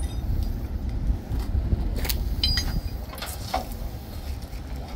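Steady low rumble with a few sharp clinks and knocks, most of them between about two and three and a half seconds in.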